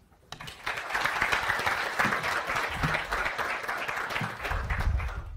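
Audience applauding, rising about half a second in, with a low rumble under it in the last second, and cutting off sharply near the end.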